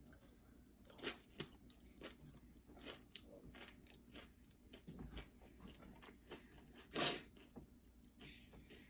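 Close-up crunching and chewing of Doritos tortilla-chip nachos, a string of short crunches with one louder crunch about seven seconds in.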